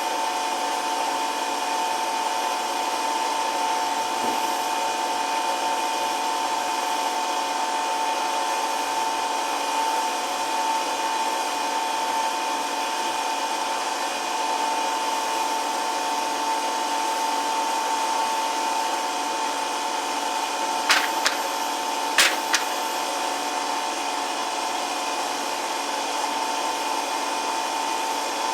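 Woodworking power tool's motor running steadily with a high, even whine and no change in speed, with two sharp knocks about three-quarters of the way through.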